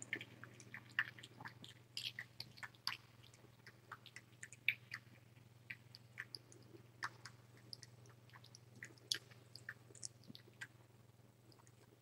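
Tiny kitten suckling on a feeding bottle: faint, irregular wet clicks and smacks of its mouth working the nipple.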